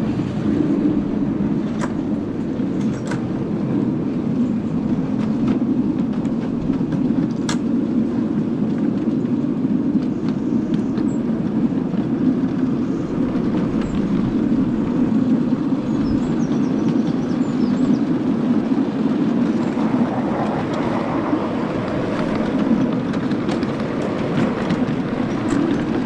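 Miniature railway train running along the track: a steady low rumble with occasional sharp clicks from the wheels and track.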